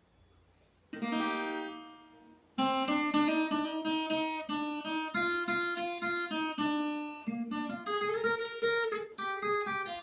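Viola caipira, the Brazilian ten-string guitar, played solo. About a second in, a single chord rings out and fades, then from about two and a half seconds a quick, steady run of plucked and strummed notes follows.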